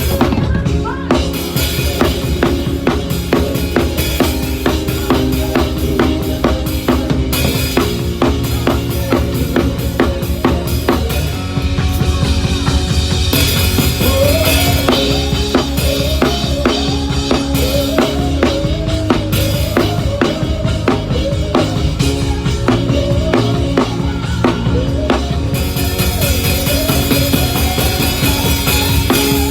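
Band music with a drum kit up front: a steady kick and snare groove with rimshots over sustained bass and chord notes. About halfway through, a melody line with bending notes comes in over the groove.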